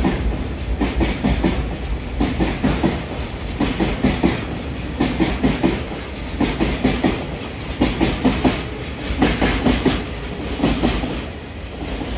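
Freight train of tank wagons rolling past, its wheels clattering over the rail joints in a repeated clickety-clack over a steady rumble.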